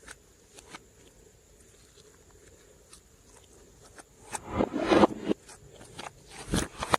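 Slime being squished and pressed, giving crackling, clicking pops. It is mostly quiet for the first four seconds, then a burst of crackles comes about four to five seconds in, and a sharp pop follows near the end.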